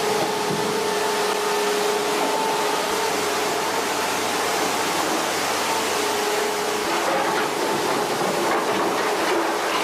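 A motor-driven machine running steadily, a constant mechanical noise with a steady hum throughout.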